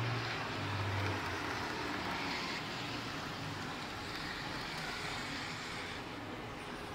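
Steady running noise of model trains on a miniature railway layout, heard over a constant background hiss, with a low hum that fades out about a second in.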